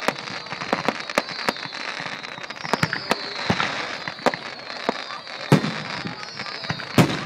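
Fireworks bursting overhead: a rapid, irregular series of sharp bangs and crackles, with high whistles sliding down in pitch again and again. The two loudest bangs come in the last two seconds.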